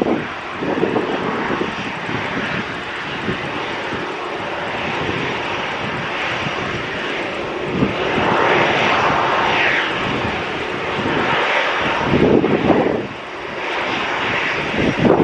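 Jet engines of a British Airways Airbus A320neo airliner, a loud, steady rush of engine noise that swells a little midway as the aircraft passes.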